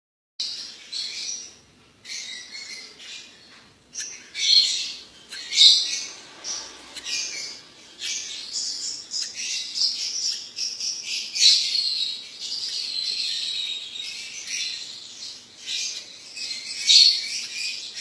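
Lovebirds chirping: shrill high calls in irregular bursts, with a longer unbroken run of chatter in the middle.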